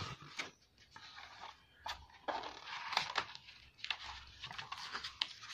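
Pages of a photo artbook being turned one after another, with paper rustling and swishing several times.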